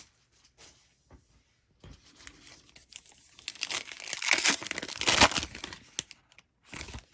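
A trading-card pack wrapper being torn open and crinkled by hand: a few soft crackles, then a loud stretch of tearing and crumpling wrapper about halfway through, with one more short crinkle near the end.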